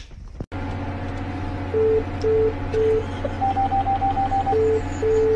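A steady engine-like hum with electronic beeps over it: a lower beep pulsing on and off about twice a second, and a higher beep in a quick run of short dashes in the middle. It starts abruptly about half a second in, after a single sharp click.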